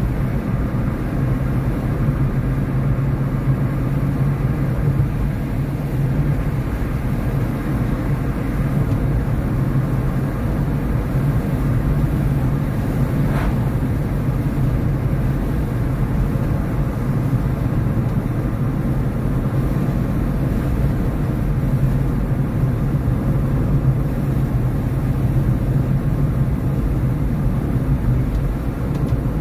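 Car driving at a steady speed: a steady low drone of engine and tyre noise, heard from inside the car.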